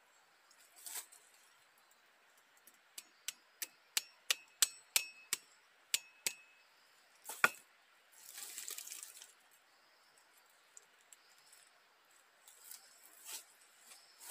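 Light metallic clinks, about three a second for a few seconds, several ringing briefly. They are followed by one louder knock and about a second of rushing, scraping noise.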